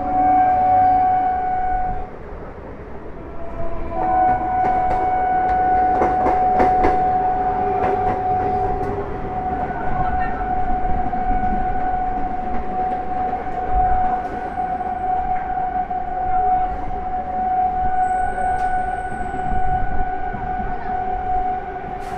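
Electric multiple unit train's horn blown almost without a break: a steady tone that stops about two seconds in, returns about two seconds later and holds on, with a second, lower tone sounding alongside at times. Underneath is the steady running noise of the train at speed, with a burst of wheel clatter around six to seven seconds in.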